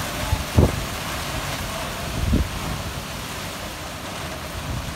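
Heavy rain falling in a windstorm, a steady hiss, with gusts of wind buffeting the microphone about half a second in and again around two and a half seconds.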